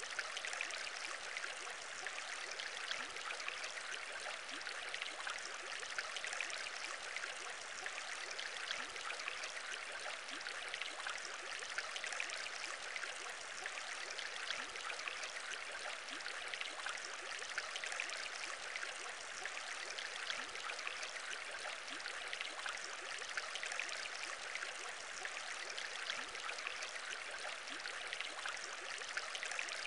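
Aquarium bubbles: a steady, dense bubbling of many small bubbles in water.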